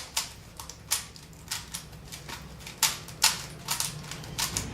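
Rubik's cube being turned quickly by hand during a speed solve, its plastic layers clicking and rattling in irregular sharp snaps, about two or three a second.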